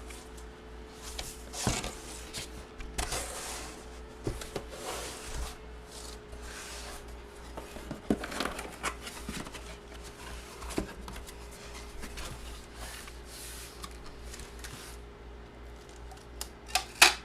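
Handling noise from a boxed autographed photo and its packaging being moved on a table: irregular rustling, sliding and scraping, with a few sharp clicks near the end. A steady low hum runs underneath.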